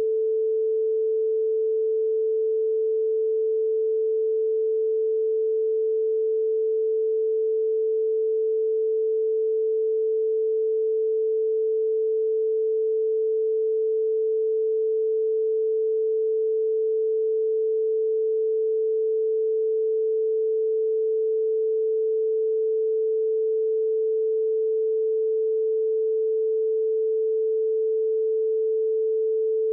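A steady pure test tone: a single unchanging mid-pitched note, held without a break or any other sound.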